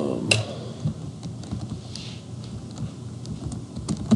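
Computer keyboard typing: scattered key clicks, coming faster near the end.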